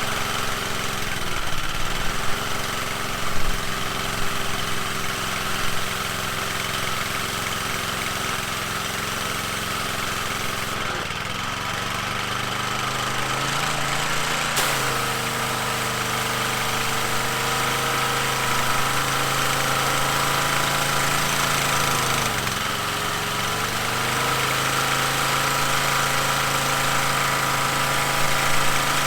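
Small gas engine of a Coleman Powermate pressure washer running steadily. Its speed dips and settles at a new pitch twice, about a third and three quarters of the way in. The owner puts its poor idling down to a carburettor that needs cleaning.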